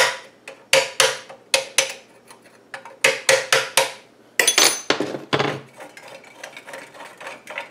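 Quick runs of sharp metallic clinks with a short ring, about four a second, as a wrench works loose the rusted lock nut of the exhaust muffler on a 1977 Briggs & Stratton Model 8 engine. A brief high squeak comes about halfway through.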